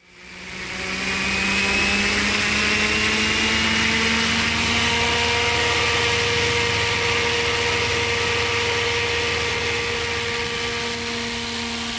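Radio-controlled scale helicopter on Align 700 mechanics in flight, a steady whine with rotor noise as it hovers and lifts off. The sound fades in at the start and the pitch rises slightly over the first few seconds, then holds steady.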